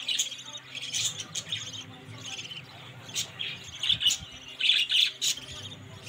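Budgerigars calling in short, scratchy squawks and chirps, coming in repeated bursts, with a loud cluster about four to five seconds in.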